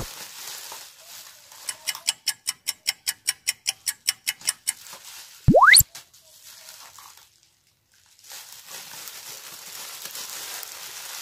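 Edited-in cartoon sound effects: a fast run of clicks, about six a second, for about three seconds, then a loud rising whistle glide about halfway through. Faint rustling of a plastic wrapping bag follows near the end.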